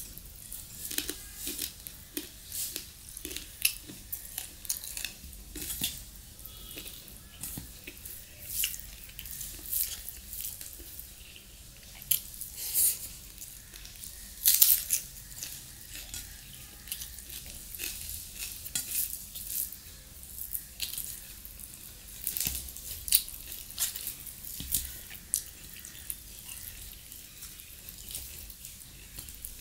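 Close-miked wet eating sounds: chewing, lip-smacking and squelching of rice and chicken curry eaten by hand, with the soft squish of fingers mixing food in a steel bowl. Many irregular sharp wet clicks, a few louder ones about 13 and 15 seconds in.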